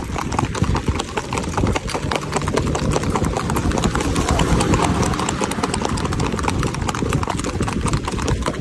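A ridden horse's hooves striking the paved road in a fast, even clip-clop.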